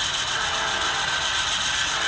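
Model train running on layout track: a steady mechanical whir and clatter of wheels and gearing.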